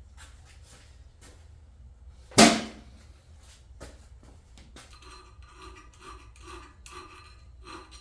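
Hand file rasping across a steel blade clamped in a vise, in short strokes: a few faint strokes, one sharp loud knock about two and a half seconds in, then a steady rhythm of about two strokes a second from about five seconds in.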